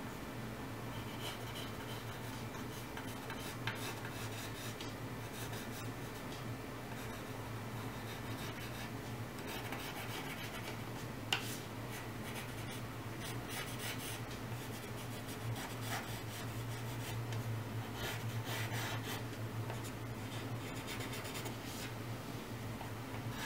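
Wooden pencil sketching on paper: light, scratchy strokes that come and go, with a single sharp tick about eleven seconds in.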